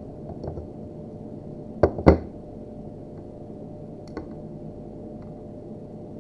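Crimping tool and network cable being handled while the cable jacket is stripped: a few sharp clicks, with two loud knocks in quick succession about two seconds in.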